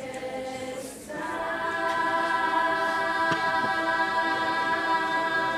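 Choir singing a long held chord without accompaniment, which swells louder about a second in.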